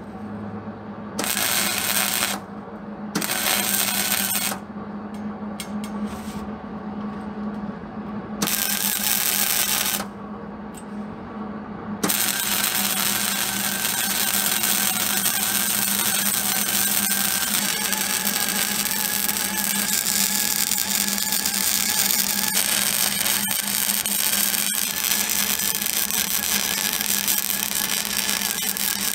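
Wire-feed welder crackling as a steel rod is welded onto a steel toolbox bracket: a few short tack welds, each a second or so long, then a continuous bead from about twelve seconds in. A steady low hum runs underneath.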